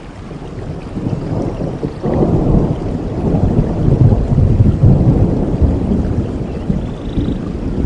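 Rolling thunder rumbling over steady rainfall in a forest, building about two seconds in, loudest around the middle, then easing off.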